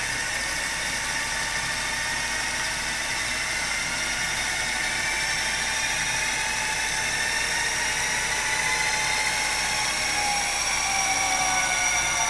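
NextScan Eclipse 600 microfilm scanner doing a high-speed rewind of a roll of film: a steady mechanical whine whose pitch rises slowly as the reel spins.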